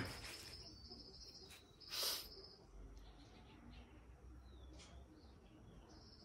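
Faint, high-pitched insect chirring that starts and stops in stretches, with a few short bird chirps in the middle and a brief burst of noise about two seconds in.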